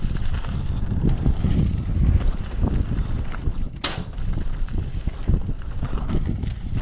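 Mountain bike descending a dry dirt downhill trail, recorded on the bike rider's GoPro: a constant rumble of tyres and suspension over the bumpy ground with rapid, irregular knocks and rattles of the bike, and wind buffeting the microphone. A brief sharp scrape about four seconds in.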